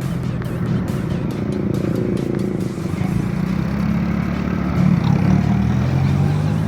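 Motorcycle engine running steadily while riding, its pitch drifting slightly up and down.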